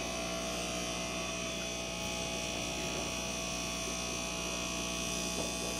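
Steady electrical hum with a faint buzz from fish-room equipment running, holding at an even level throughout.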